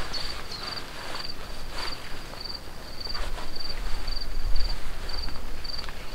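A cricket chirping steadily in short, high, pulsed chirps, nearly two a second. Faint rustles from handling gear, and a low rumble swelling about two-thirds of the way through.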